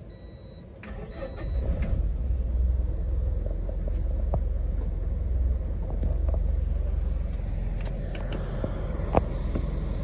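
Bus engine running, heard from inside the passenger cabin: a deep steady rumble that comes up over the first two seconds, with a few short clicks and rattles.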